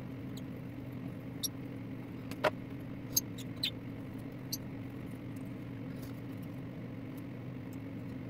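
A steady low hum, with five or so short high chirps and clicks over it between about one and a half and four and a half seconds in.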